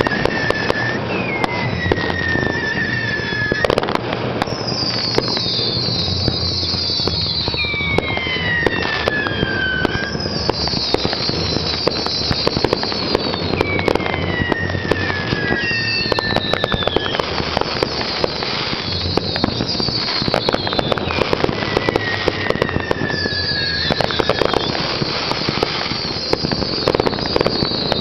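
Fireworks display: a continuous barrage of bangs and crackling, with high falling whistles coming back every few seconds.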